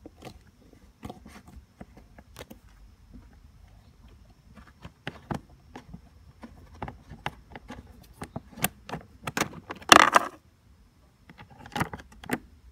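Screwdriver working out a screw in the scooter's plastic battery-compartment cover: a run of light clicks and scrapes of metal on the screw head and plastic, getting busier about halfway through, with a louder brief rattle near the end.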